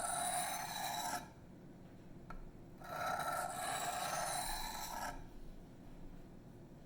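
Steel knife blade (154CM, Emerson Mini A100) drawn across a sharpening stone in two long, even scraping strokes, each about two seconds: a deburring pass on the flat side of the chisel grind.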